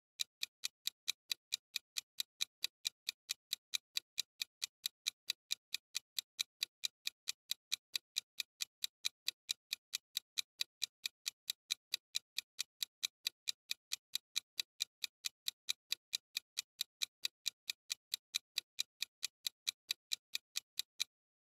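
A clock-ticking sound effect for a countdown timer: rapid, evenly spaced sharp ticks that mark the seconds running out to answer.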